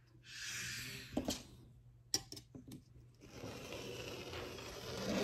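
Rotary cutter rolling along a steel ruler and slicing through tulle on a cutting mat, a steady scraping hiss over the last two seconds. Before it come a brief rustle and a few light clicks and taps.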